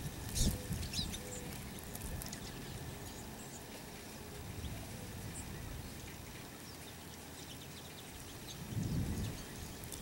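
Faint, soft bird calls from birds feeding on the ground, over a steady outdoor hiss, with a few sharp clicks in the first second and a low rumble near the end.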